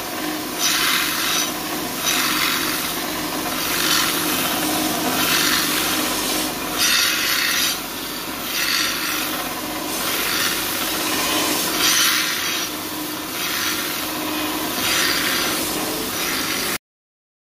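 A belt grinder grinds a steel knife blank over a steady machine hum. The grinding hiss swells and fades roughly every second or two as the blade is worked against the belt, then cuts off suddenly near the end.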